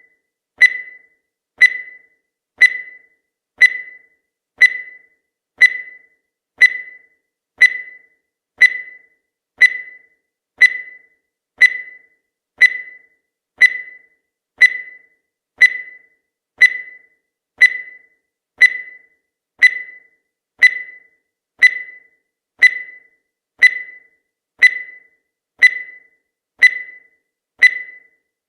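Countdown timer sound effect: a short, sharp, pitched tick once every second, steady and even, each dying away quickly.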